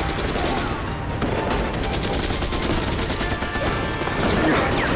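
Dense rapid rifle and machine-gun fire in a battle, volleys overlapping in quick runs over a constant din, with background music. Voices shout near the end.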